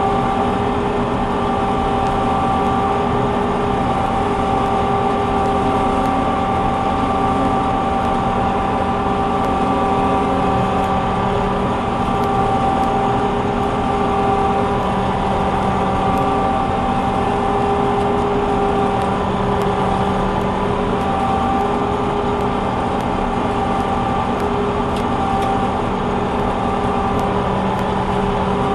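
Combine harvester running steadily while harvesting soybeans: an even mechanical drone with a few steady whining tones held throughout.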